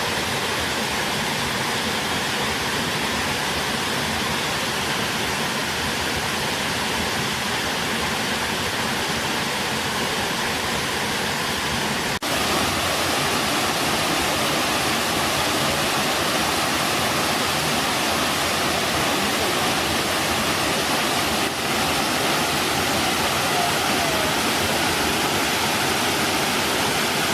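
Waterfall pouring steadily, an even rush of falling water. It breaks off for an instant about halfway through and comes back slightly louder.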